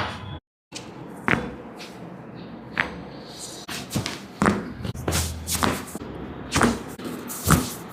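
A series of about eight sharp cracks and thuds at irregular intervals during a chiropractic spinal adjustment: joints popping and hands thrusting against the body.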